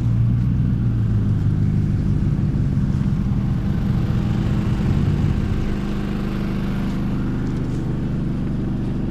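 A motor vehicle's engine running steadily, its deep low hum easing off about six seconds in.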